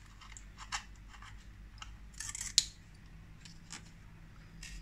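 Scattered light clicks and scrapes of a bare 2.5-inch laptop hard drive and its metal frame being handled and turned over by hand, with a short cluster of ticks a little after two seconds in.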